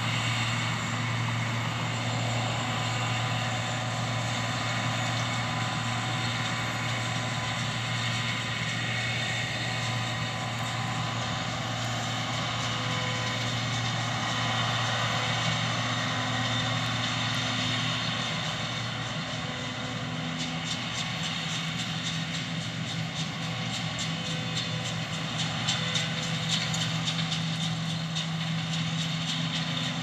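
John Deere 2058 combine harvester running while cutting wheat, a steady low mechanical hum of engine and threshing gear. About two-thirds through, its tone shifts higher as the combine reaches the end of the row and turns.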